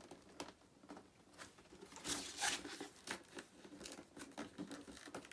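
Cardboard display box being opened by hand: a perforated window flap is pried and torn open, with irregular crinkling, crackling and light tearing, loudest about two seconds in.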